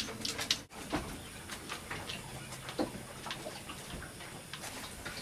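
Quiet background with a few faint scattered clicks and ticks, and a brief drop-out about a second in.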